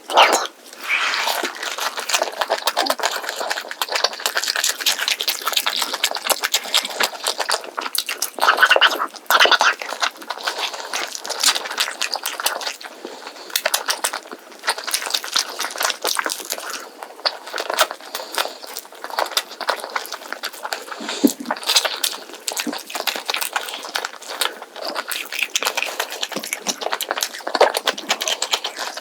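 Close-up eating sounds: wet chewing and crunching of roast whole chicken with scorched rice, a dense run of small clicks and crackles.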